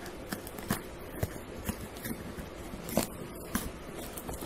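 Scissors cutting through the packing tape and cardboard of a shipping box: a series of about eight sharp snips, roughly one every half second.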